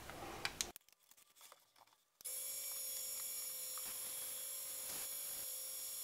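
A few faint clicks, a silent gap of over a second, then from about two seconds in a steady electric motor hum with a thin high whine: the wood lathe running.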